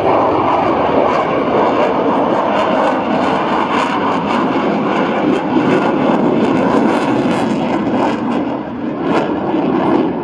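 Jet noise of an F-16C fighter flying its display, loud and steady, dipping briefly about eight and a half seconds in.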